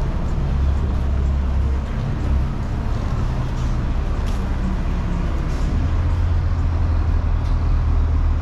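Downtown street traffic: vehicles running past with a steady low rumble.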